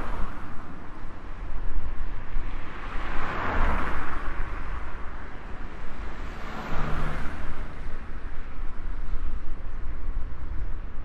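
Road noise of a moving car, heard from inside: a steady low rumble with tyre and wind hiss that swells louder three times.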